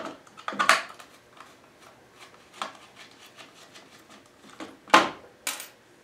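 Scattered clicks, taps and scrapes of a screwdriver and hands working on a plastic gate-opener housing, with a louder sharp knock about five seconds in.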